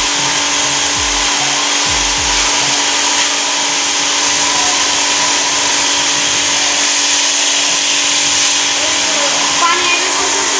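Electric high-pressure washer running, its motor and pump humming steadily under a loud, even hiss.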